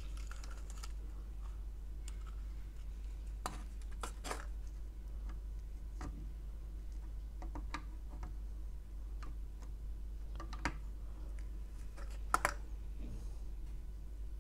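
Scattered faint clicks and crackles from a 150 W soldering iron working a solder joint around an M8 battery post on an aluminium PCB, over a steady low hum. The clicks come a few seconds apart, with the sharpest about twelve seconds in.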